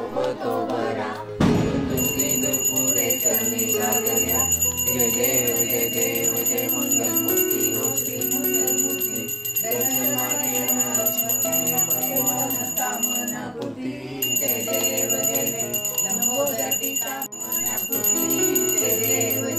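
A brass puja hand bell (ghanti) rung continuously during the aarti, with a short break about two-thirds of the way through. An aarti song plays underneath, with singing.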